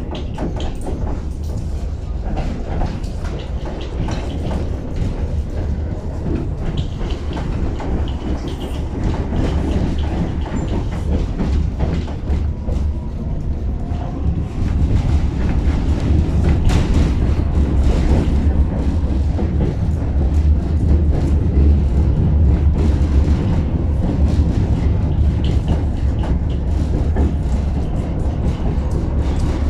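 Tatra T6B5 tram running along the rails, with a steady low rumble and the clatter of wheels on the track. It grows louder about halfway through.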